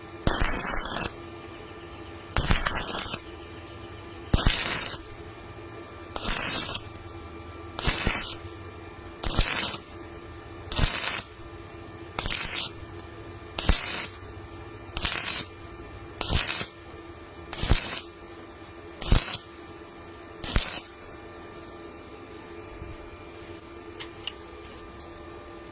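A series of short hissing bursts, about fourteen in all, one roughly every second and a half, each opening with a sharp crack; then they stop.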